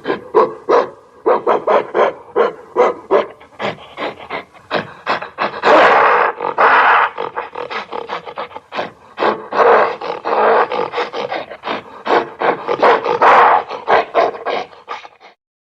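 Gorilla vocalising: short calls in quick succession, about three a second, broken by longer, louder roars about six, ten and thirteen seconds in. It cuts off suddenly near the end.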